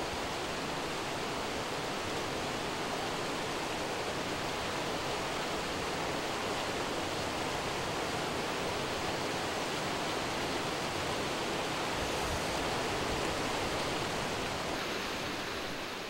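Steady rushing of a mountain stream cascading over rocks, fading out near the end.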